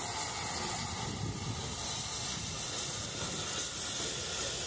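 Steam locomotive giving off a steady hiss of steam.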